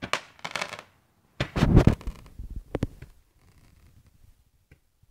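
Fireworks going off: a crackling burst at the start, a louder bang with crackle about a second and a half in, and a sharp crack near the three-second mark, fading to faint scattered crackling.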